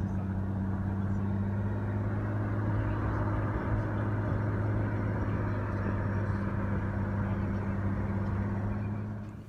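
Pickup truck engine running with a steady hum, then switched off near the end, when the sound drops away suddenly.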